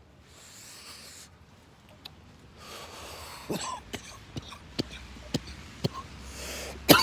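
A person breathing in and out audibly twice, then a run of short, repeated coughs and throat-clearing about every half second.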